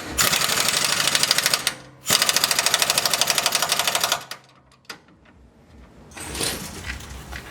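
Pneumatic impact wrench hammering on a suspension bolt in two bursts of about two seconds each, with a short pause between them.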